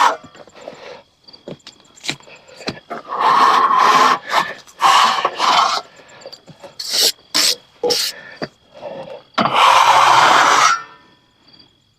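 Scraping and rubbing in several one-to-two-second bursts, with sharp knocks in between.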